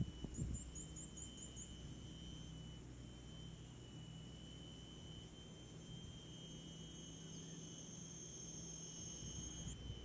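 Rainforest canopy insects droning in steady, high-pitched whines, with a quick run of about six short high chirps in the first two seconds. A low steady hum lies underneath, and there are two soft knocks right at the start.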